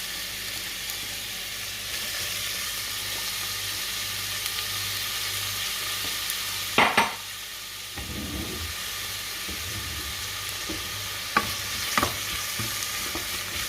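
Chopped red onions sizzling as they fry in hot olive oil in a pot, a steady hiss. One loud knock about seven seconds in, and a few lighter knocks near the end.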